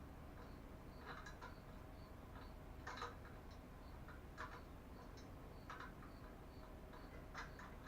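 Faint bursts of clicking and rattling a second or two apart, from hand work on the bike while the engine is being secured, over a faint, even ticking about twice a second.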